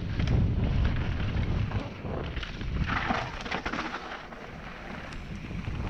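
Mountain bike descending a dirt trail: wind buffeting the microphone with a heavy low rumble, strongest for the first two seconds, over knobby tyres rolling on dirt and loose stones. Scattered clicks and rattles from the bike over rough ground, with a gritty hiss of tyres on gravel about three seconds in.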